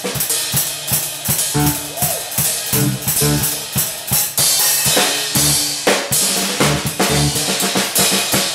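A live instrumental trio playing a busy groove: a drum kit with dense snare, bass drum and cymbal hits drives it, over repeated electric bass notes and a keyboard.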